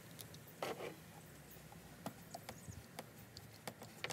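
Light clicks and small metal clinks of hex keys and a washer being handled. A brighter clink with a short ring comes under a second in, and a few sharper clicks come near the end.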